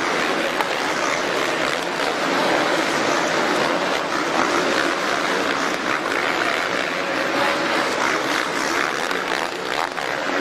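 Several supercross dirt bikes racing round the track, their engines revving and blending into a steady, dense noise.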